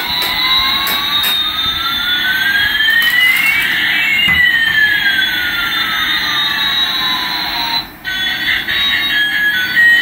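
Electronic jet-engine sound effect from a toy Airbus A380's sound chip: a whine rising in pitch and another falling, crossing at about four seconds and cutting off near eight seconds. A beeping electronic melody follows near the end.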